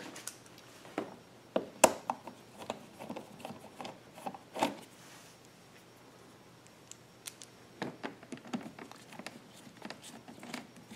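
Scattered small clicks and knocks of screws and a screwdriver being handled and fitted into a generator's side panel, the sharpest about two seconds in, with a quiet stretch in the middle.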